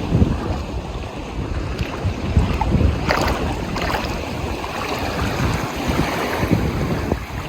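Ocean waves washing and splashing, with wind buffeting the microphone in uneven gusts; a brighter splash comes about three seconds in.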